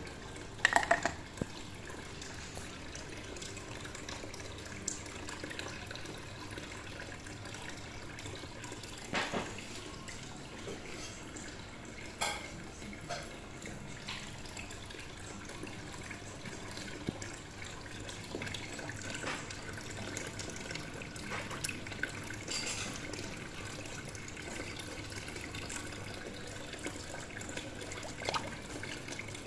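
Aquarium filter running, with a steady trickle of water and a faint hum, broken by a few short sharp clicks, the loudest about a second in.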